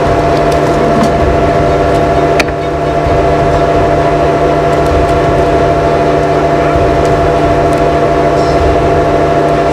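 Mini excavator's diesel engine running steadily at a constant speed, with one sharp metallic knock about two and a half seconds in.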